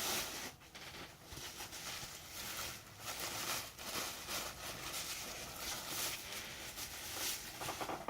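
Irregular rustling and scraping of packaging being handled and opened by hand.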